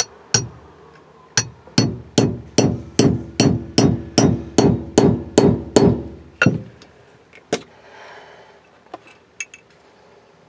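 Claw hammer tapping a pin punch to drive the roll pin out of a distributor's drive gear: a steady run of sharp strikes, about two and a half a second, with a few slower strikes around it and a couple of faint clicks near the end.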